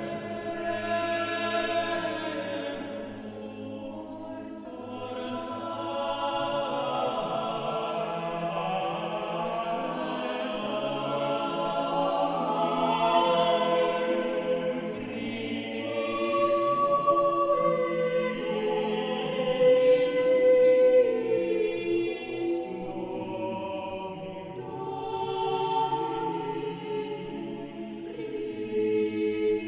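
Background music: a choir singing slow, sustained chords.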